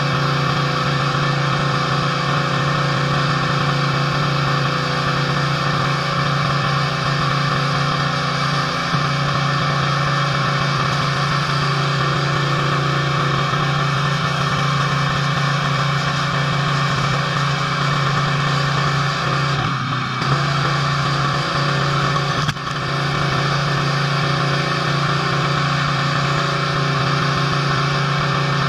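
Pressure washer's engine running steadily under load, with the hiss of the high-pressure water spray on the driveway. The sound dips briefly twice, about 20 and 22 seconds in.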